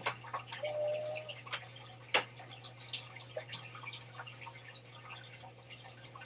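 Small scattered clicks and taps from handling cosmetic products and packaging, with a sharper click about two seconds in and a short faint tone near the start, over a steady electrical hum.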